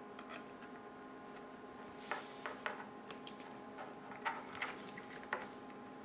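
Sharp little clicks and taps of small hard parts being handled, the metal back cover and plastic parts of an iPod Video being fitted together. About nine clicks come between two and five and a half seconds in, over a faint steady hum.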